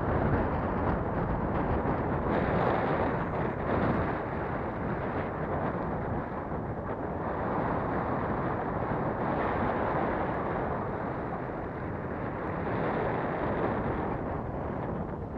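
Strong gusty wind buffeting the camera microphone, a dense rumbling rush that swells and eases every few seconds.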